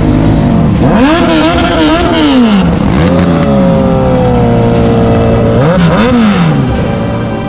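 Several motorcycle engines revving in a group ride. The pitch climbs and falls about a second in and again around six seconds, with a steadier engine note in between.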